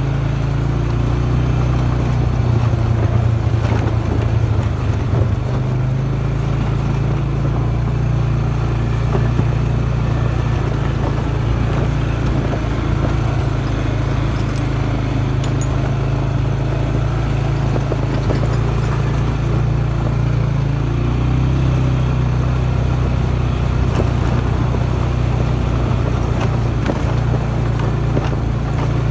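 Engine of an off-road vehicle running steadily while it rides down a dirt trail, its low hum shifting slightly about two-thirds of the way through.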